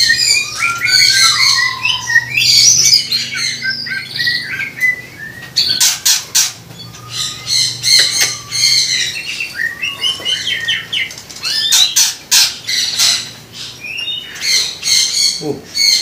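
Cucak ijo (greater green leafbird) of the Banyuwangi strain singing: a fast, varied run of whistles and chirps mixed with harsh rasping notes, with a falling whistle about two seconds in.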